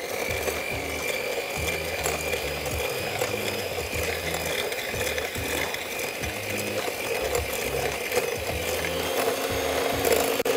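Electric hand mixer running steadily with a constant motor whine, its beaters creaming butter with white and brown sugar in a glass bowl.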